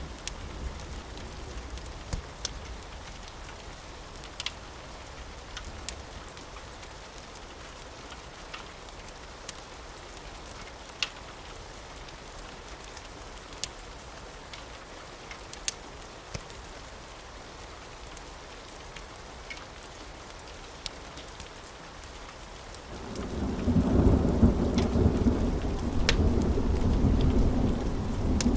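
Steady rain falling, with sharp scattered drips and crackles, until a loud rumble of thunder swells in near the end and keeps rolling.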